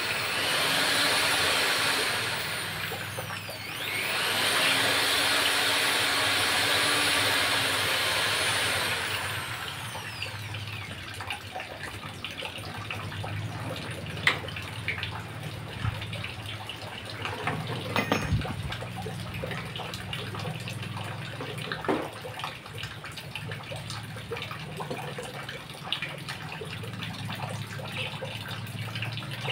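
Electric drill motor run without words: it spins up and runs for about three seconds, slows briefly, then spins up again and runs for about five more seconds before winding down. After that only a quieter steady low hum with scattered clicks and taps.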